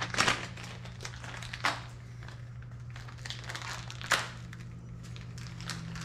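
Handling noises: rustling and crinkling with a few sharp clicks, the loudest near the start, about one and a half seconds in and about four seconds in, over a steady low hum.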